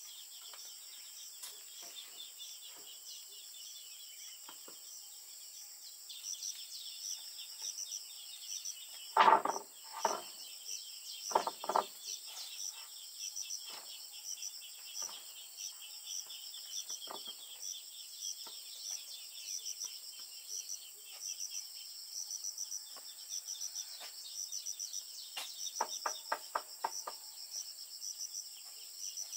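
Insects chirping steadily, with a few loud, sharp knocks of wooden boards being handled about nine to twelve seconds in, and a quick run of taps near the end.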